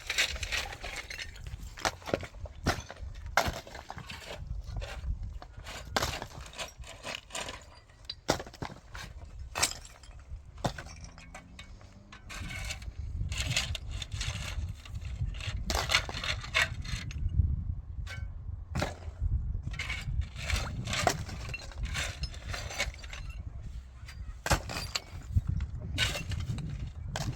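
Many irregular knocks and clinks of hard objects being handled, over a steady low rumble.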